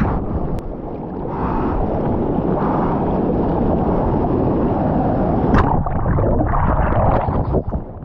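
Seawater rushing and splashing around a GoPro at water level as a surfer paddles through breaking whitewater. About five and a half seconds in there is a sharp splash, then the muffled rush of the camera going under the wave.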